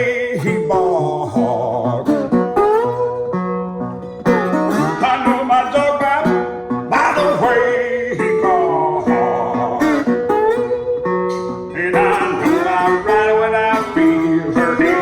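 Acoustic guitar playing a Delta blues instrumental passage of picked notes, some of them bent or wavering in pitch.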